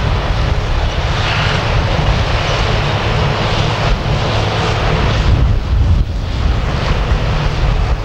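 Forage harvester and tractor engines running steadily while cutting grass for silage, a deep rumble with wind buffeting the microphone.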